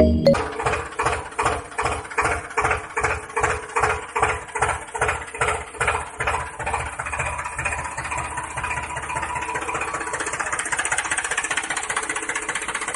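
Small single engine, as of a mini tractor, chugging in slow, even beats that speed up over the first several seconds until it runs steadily.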